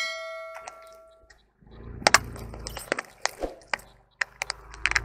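A bright bell chime rings at the start and dies away after about a second. Then a car tyre rolls onto a plastic toilet-shaped candy container filled with jelly candy and crushes it: a series of sharp plastic cracks and crunches over a low rumble.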